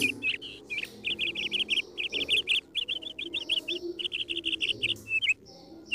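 Bottlenose dolphin chirping: runs of quick, high chirps, several short runs one after another, with a brief pause near the end.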